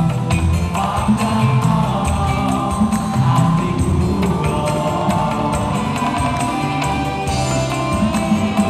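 Live campursari band playing a song with a steady percussion beat, bass and melody, and voices singing along.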